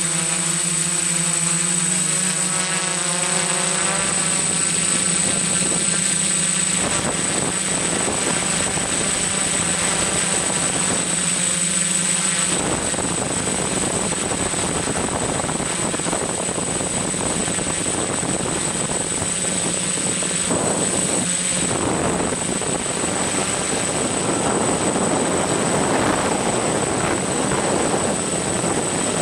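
Camera drone's electric motors and propellers heard from its onboard microphone: a steady buzzing hum with a constant high whine, the lower hum shifting a few times as it flies.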